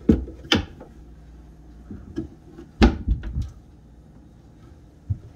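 Wooden kitchen cabinet doors being swung open and shut by hand. There are two sharp knocks at the start, a louder clack about three seconds in followed by a few lighter taps, and one light knock near the end.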